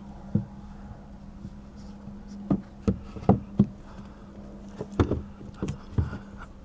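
Light knocks and taps as a Moonlight hatch is handled and pressed into its sealant-bedded cutout in a fibreglass cabin side, a quick cluster of four in the middle and a few more near the end, over a steady low hum.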